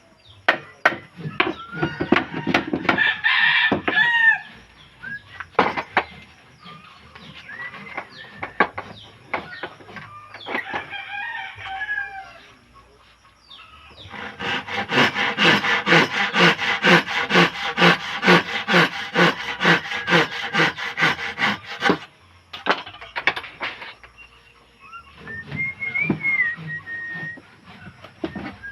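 Woodworking knocks and strikes, with a run of fast, evenly paced strokes, about four a second, through the middle. A rooster crows at times in the background.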